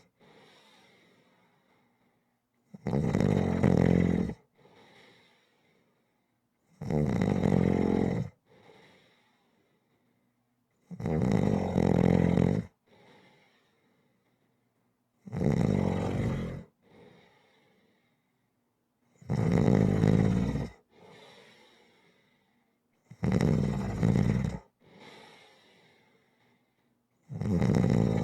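Rhythmic snoring: a loud snore about every four seconds, each lasting about a second and a half and followed by a much fainter breath, about seven snores in all.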